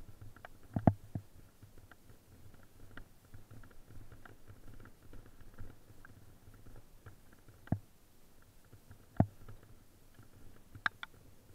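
Fat bike ride on snow: a low steady rumble with many light clicks and rattles, and a few sharp knocks, one about a second in, two in the latter half and a quick double knock near the end.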